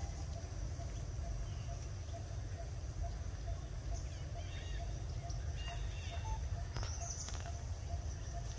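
Outdoor ambience: a steady low rumble with a few faint bird chirps about halfway through, and a faint, evenly repeating note running under it.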